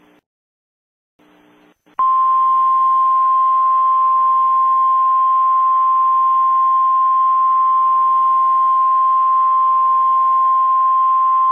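Emergency alert attention tone: a single steady high-pitched beep begins about two seconds in and holds unbroken for about ten seconds. It is one pure tone, like the 1050 Hz warning alarm tone that signals an emergency alert is about to be read.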